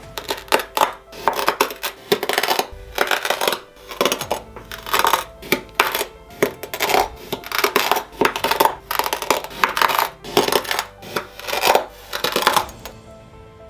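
Kinetic sand being sliced with a blade: a gritty, crunching stroke roughly once a second, each one a short burst of crackling grains, stopping shortly before the end. Soft music plays underneath.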